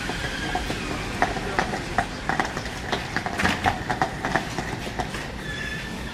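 Russian Railways passenger carriages rolling slowly past a platform, their wheels knocking irregularly over rail joints, with a brief high squeal near the end.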